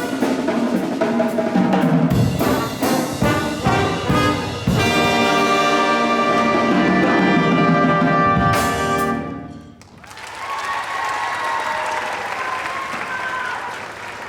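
Live brass ensemble with drums playing a series of quick chords, then a long held final chord that cuts off about nine and a half seconds in. Audience applause follows.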